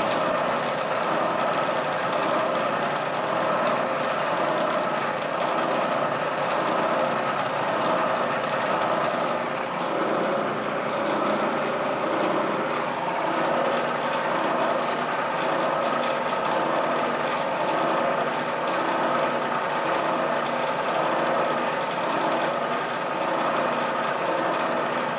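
Milling machine running steadily, its spindle turning an edge finder.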